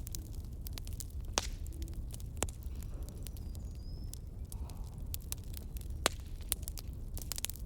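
Fire crackling: irregular sharp pops and snaps, some louder than others, over a low steady rumble.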